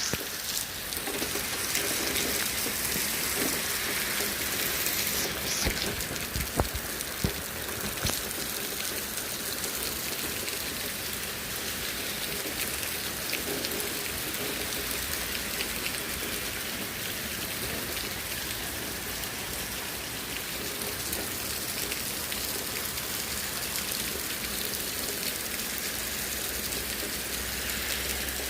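Heavy thunderstorm rain falling steadily, a constant hiss, with a few sharp taps in the first several seconds.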